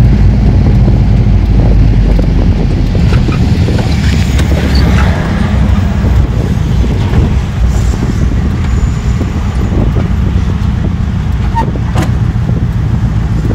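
Volkswagen Kombi van's engine and road noise heard from inside the cab while driving: a loud, steady low rumble that eases a little after about five seconds.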